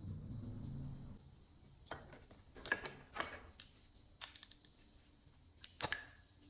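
Glossy slime being pressed and mixed by hand, giving sticky clicks and pops in short clusters, with a sharp snap near the end. A low muffled rumble fills the first second.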